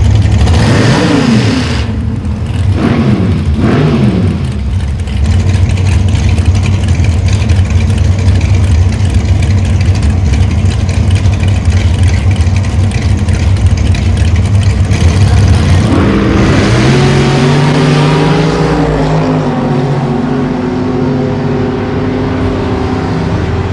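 Dragster engines idling loudly, with revs blipped and falling away several times in the first few seconds. About two-thirds through, the cars launch and the engines climb in pitch as they accelerate down the track.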